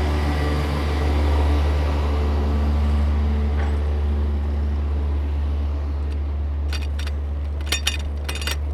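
Steady low wind rumble on the microphone while riding along the road, with the hum of a motor vehicle's engine fading away over the first few seconds. A few sharp clicks come near the end.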